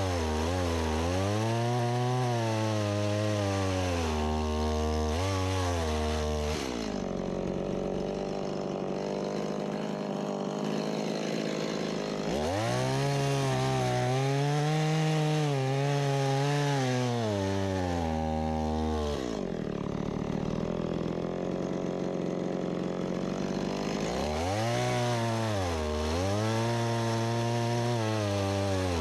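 Stihl MS170 two-stroke chainsaw cutting wood, its engine pitch repeatedly sagging and recovering under load. Twice it runs for several seconds at a steadier, higher pitch.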